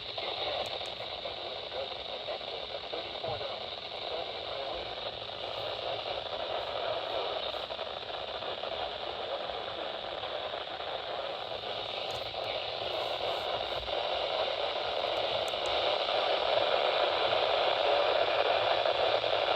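Steady hiss and static from a radio receiver, confined to the narrow audio band of a radio channel, growing somewhat louder over the last few seconds.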